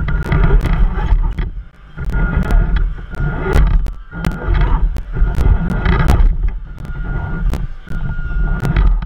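RC crawler driving in stop-start surges: a thin motor whine comes and goes in stretches of a second or two over a loud low rumble, with many sharp clicks throughout.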